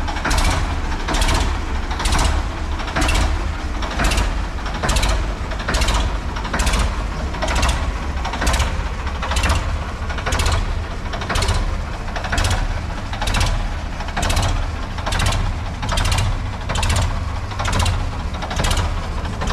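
Ford 3600 tractor's three-cylinder engine running as the tractor is driven out: a steady low rumble with an even pulse about one and a half times a second.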